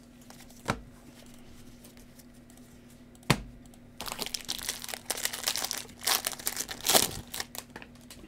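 Two sharp taps, then a Panini Prizm trading-card pack's foil wrapper crinkling and tearing open for about three seconds, from about four seconds in.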